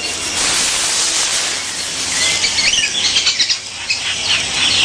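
Rustling of branches and leaves in the rainforest canopy, followed from about two seconds in by many short, high chirping calls of small animals.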